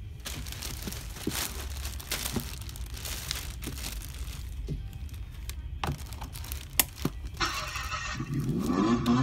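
Clear plastic wrapping crinkling and rustling as hands pull it off a ride-on toy car's seat, with scattered sharp crackles. Near the end a pitched sound that rises and falls in pitch comes in and gets louder.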